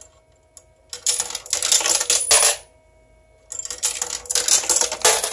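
Two tokens dropped one after the other into a pay phone's coin slot, each clattering and rattling down through the coin acceptor for about a second and a half, the second about a second after the first ends.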